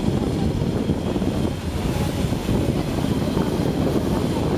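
A motor yacht's engines running as it motors past close by: a steady low-pitched noise.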